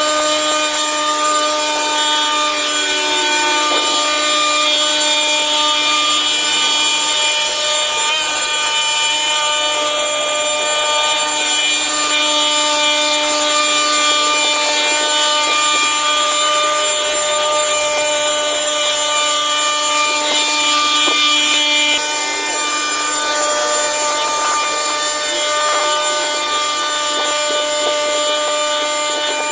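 Small petrol engine of a motorised cutting tool running steadily at high speed, with a slight dip in level about two-thirds of the way through.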